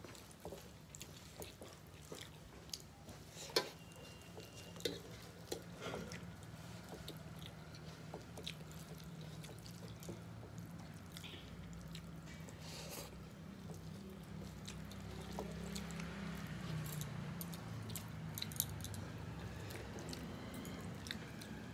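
Close-up eating sounds: chewing and wet smacking, with fingers mixing rice and curry on metal plates, as scattered small clicks and squishes. A low steady hum sits underneath.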